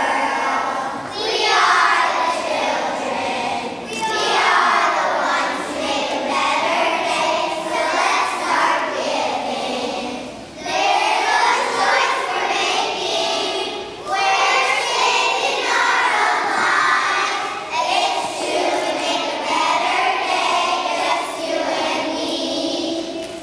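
A group of kindergarten children singing together in unison, in sung phrases a few seconds long with short pauses between them.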